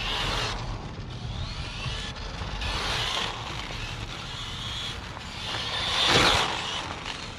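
Small electric RC car driving on asphalt: its motor's high whine rises and falls with the throttle. Tyre and drivetrain noise swells three times as the car passes close, loudest about six seconds in.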